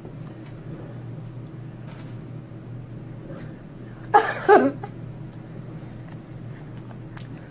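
Faint clicks and scrapes of a plastic spoon stirring slime in a plastic tub, over a steady low hum. About four seconds in comes a sudden loud vocal burst in two quick pulses, the loudest thing here.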